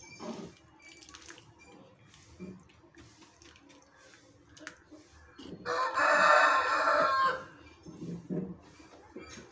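Faint scrapes and clicks of a steel ladle stirring vermicelli in milk in a pan. About five and a half seconds in, a loud drawn-out bird call lasts about a second and a half and is the loudest sound.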